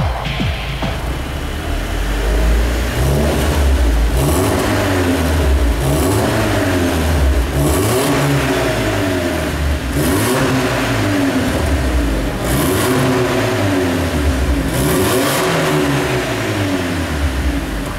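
BMW Z4 engine revved again and again through an aftermarket sport exhaust, its pitch climbing and falling back every couple of seconds.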